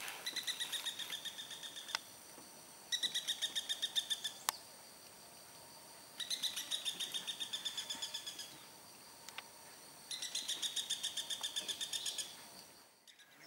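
Black-rumped flameback (lesser golden-backed woodpecker) giving its rattling call: four bouts of fast, evenly repeated high notes, each lasting about two seconds and dropping slightly in pitch. A single sharp click comes just after the second bout.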